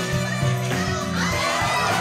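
Music playing, with an audience shouting and cheering over it from about halfway through.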